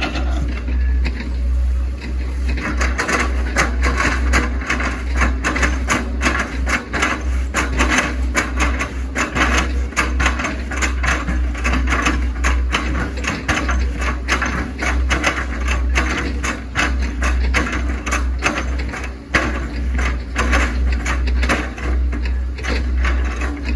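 Hitachi ZAXIS 110 excavator at work: a steady low engine drone under a rapid, irregular clatter of clicks and knocks.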